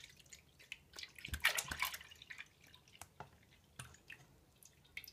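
The last of the milk dribbling and dripping from a plastic jug into a stainless steel pot: a brief splashing trickle about a second and a half in, then scattered single drips.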